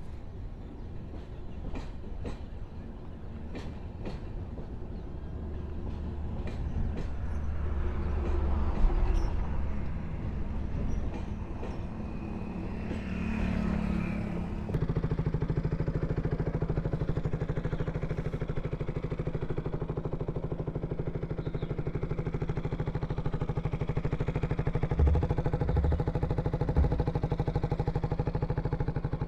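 Motorcycle engine running with road and wind noise, building up over the first half. About halfway in it switches abruptly to a steady, even engine note that holds.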